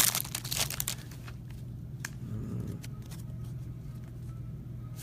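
Trading-card pack wrapper crinkling and tearing for about the first second, then a few faint clicks of cards being handled over a steady low hum.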